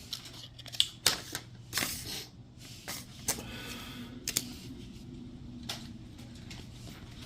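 Irregular clicks and light rustles of a smartphone and its packaging being handled, over a faint steady low hum.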